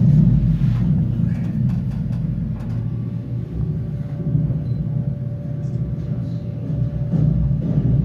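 Recorded World War II air-raid sound effects played back inside the concrete shelter: a loud, continuous low rumble, with faint steady tones above it.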